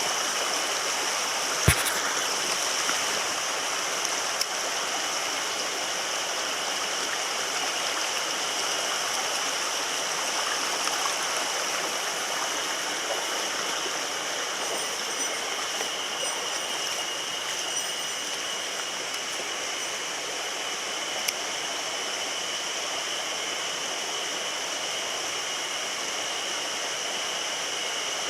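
Mountain stream rushing steadily over rocks, with one sharp click about two seconds in.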